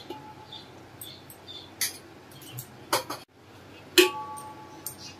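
A metal utensil clinks and knocks against a large metal cooking pot while rice is tipped in. There are several sharp clinks, and the loudest, about four seconds in, rings briefly.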